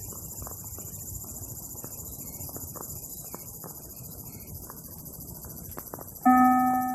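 Steady high-pitched shrilling of insects over quiet outdoor ambience. About six seconds in, the first note of the chime from a UNIPEX municipal disaster-prevention outdoor loudspeaker rings out, a loud bell-like tone that starts a rising series of notes.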